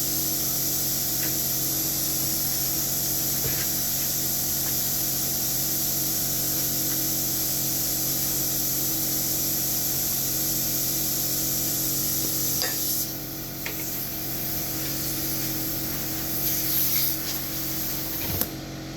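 Steady hiss of compressed air at a dirt bike tyre's valve stem from the air chuck, cutting off sharply about 13 seconds in, over a steady low hum. A few light clicks and knocks follow near the end.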